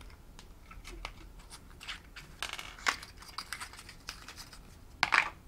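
Small cardboard boxes being opened by hand: scattered light tearing and rustling of thin card with soft clicks, the loudest burst near the end.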